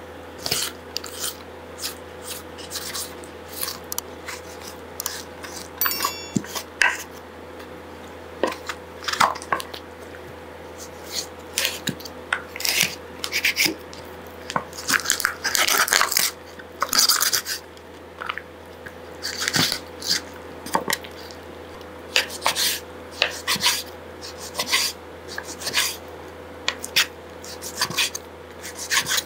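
Knife cutting a raw duck on a wooden cutting board: irregular short crunching and slicing sounds through skin and meat, with the blade now and then knocking the board.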